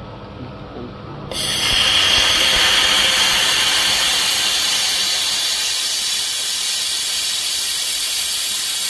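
Steady hiss from a 1.5 kW fiber laser welding machine as it welds. The hiss starts abruptly about a second in over a low machine hum, and it cuts off sharply at the end.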